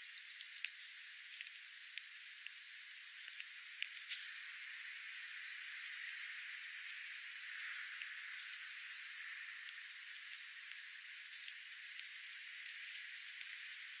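Sparrows and dark-eyed juncos foraging on birdseed over gravel: scattered light clicks of pecking over a steady faint hiss, with a few brief high chirps.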